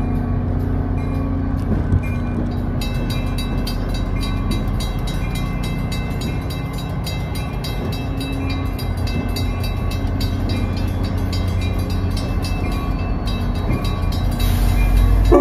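Shore Line East GP40-3H diesel locomotive running with a steady low engine rumble. Grade-crossing bells ding rapidly over it from about three seconds in, and a short sharp hiss comes near the end.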